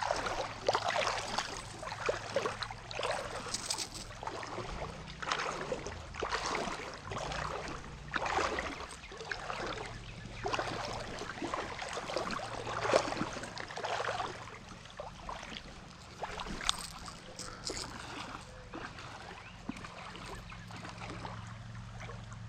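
Irregular sloshing and splashing in shallow creek water, a swish every second or two, as from someone wading or moving through the water.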